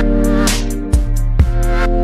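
Electronic background music: sustained synth chords over a steady bass, with drum hits about twice a second.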